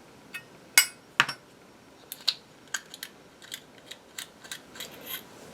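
Light, irregular clicks and taps from handling Zippo lighters and their metal parts, about a dozen small clicks with the loudest near the start.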